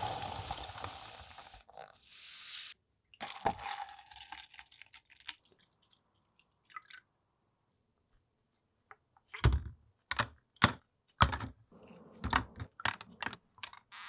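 Rusty Zippo lighter parts dropped one after another into a clear plastic cup of liquid to soak: about ten sharp clicks and knocks of metal on plastic in the last few seconds. Earlier there is a brief rushing noise with a short hiss.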